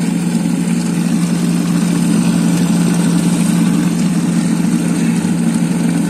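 Electric mixer motor running steadily inside a covered drum, a loud, even hum, while olive oil is fed in slowly to emulsify with the eggs into mayonnaise.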